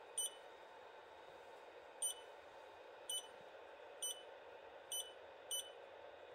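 The FLSun Super Racer 3D printer's touchscreen beeping: about seven short, high beeps at irregular intervals of roughly a second, one for each key press as the nozzle temperature is typed in. A faint steady hiss runs underneath.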